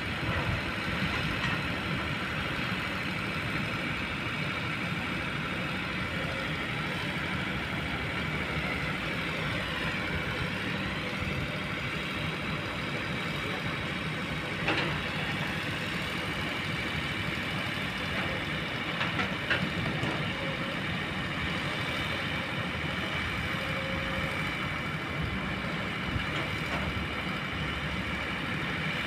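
Kobelco long-boom excavator's diesel engine running steadily, with a steady whine over the engine and a couple of sharp knocks around the middle.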